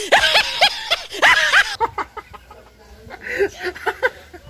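A quick run of high, rising laugh cries, dubbed over as a joke laugh, stopping abruptly about two seconds in. Then a man and a woman laugh more softly, the man stifling his laughter behind his hand.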